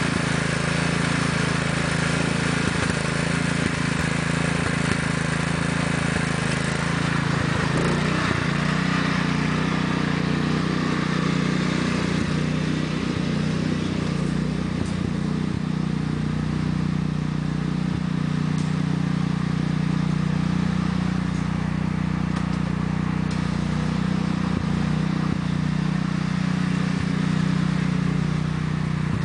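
The 14 hp Kohler engine of a 1993 Sears Craftsman lawn tractor running at a steady pitch as the tractor is driven on a hill climb.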